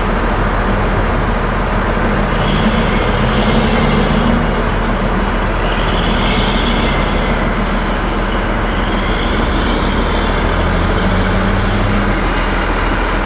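Truck diesel engine running steadily, its pitch rising and falling slightly a few times.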